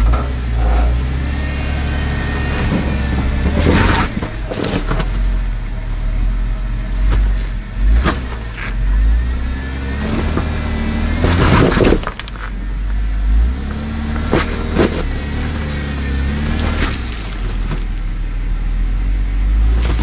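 Jeep Wrangler JKU Rubicon engine working at low speed, revving up and down as the Jeep crawls up a rocky climb in four-low. Several sharp knocks and crunches of tires and rock come through over the engine.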